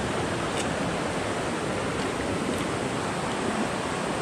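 Steady rush of river water flowing over stones: an even hiss that does not let up.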